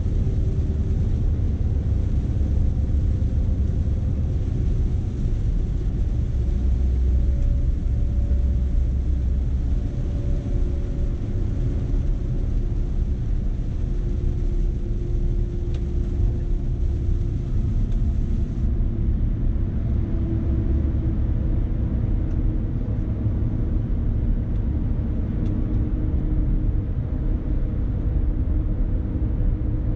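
Scania S520's V8 diesel running under load, heard from inside the cab as a steady low drone with road noise. A higher hiss cuts out about two-thirds of the way through.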